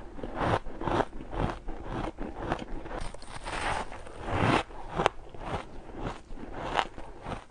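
Soft, frosty ice being bitten and chewed: a run of crisp crunches, with the loudest bites about four and a half and five seconds in.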